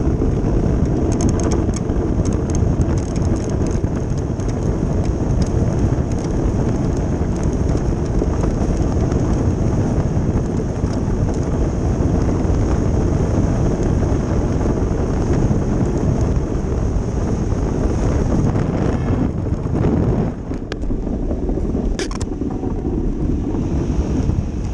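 Ice boat runners rumbling and hissing steadily over clear lake ice at speed, with wind buffeting the microphone. The noise eases briefly near the end.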